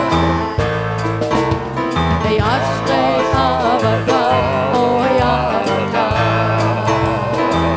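Worship music played by a band: steady bass notes change every second or so under a melody line that wavers with vibrato.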